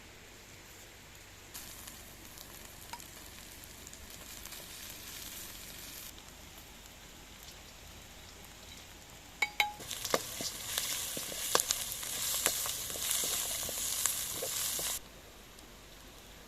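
Food sizzling in hot fat: a faint hiss at first, then after a couple of sharp clicks a loud crackling sizzle with many spitting pops for about five seconds, which stops suddenly near the end.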